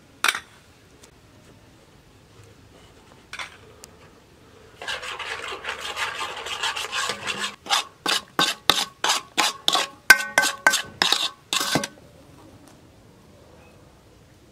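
Spices being mixed by hand in a large stainless-steel bowl. There is a sharp tap near the start, then a couple of seconds of steady rubbing and scraping on the metal. After that come quick even strokes, about three a second, that make the bowl ring faintly, stopping about twelve seconds in.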